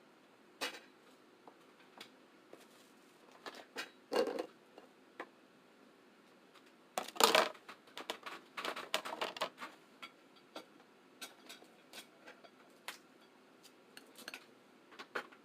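Seafood boil being eaten: scattered clicks and clatter of food and utensils being handled, with a louder burst about seven seconds in and a busy stretch of clatter just after it.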